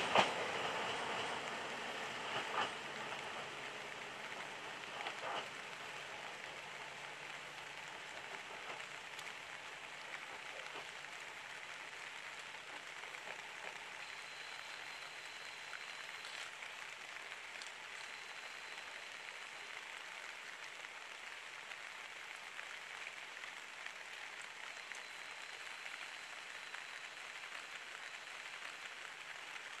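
Steady rain falling on foliage and ballast. In the first few seconds a KiHa 40 diesel railcar fades into the distance, with a few wheel clacks over rail joints.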